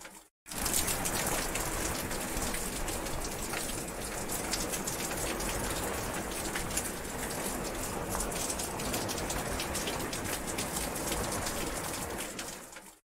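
Steady heavy rain falling, an even hiss with many separate close drops striking through it. The sound cuts out to silence for a moment just after the start and again just before the end.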